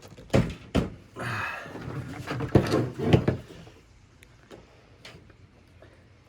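Knocks, clatter and scraping as the parts of a trolling motor's shaft and head are handled and wires are worked through them, busiest in the first three seconds, then a few faint taps.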